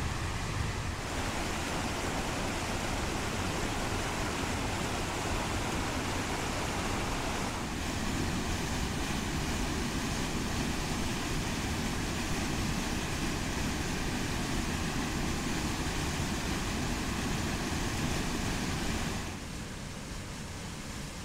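Creek water rushing over rock slabs in a foaming whitewater cascade, a steady rush of noise. It gets a little louder around eight seconds in and drops to a softer, duller rush near the end.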